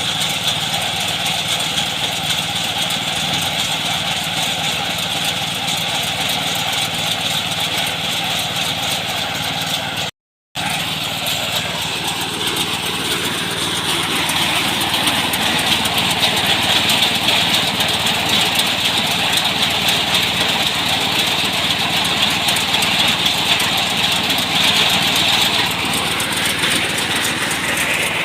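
Small engine-driven rice threshing machine running steadily. The sound breaks off for about half a second about ten seconds in, then comes back slightly louder and brighter.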